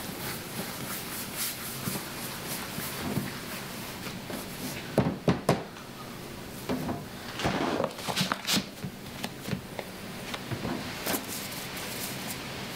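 Hands rounding small pieces of dough on a floured stainless-steel bench: dough scuffing and patting on the metal, with a few sharper knocks about five seconds in and again around eight seconds.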